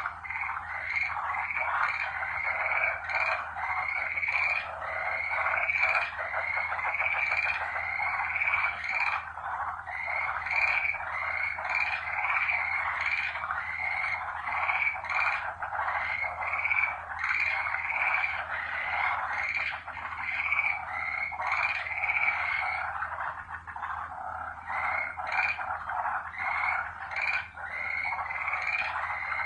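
A chorus of many frogs calling at once, their short repeated calls overlapping without a break.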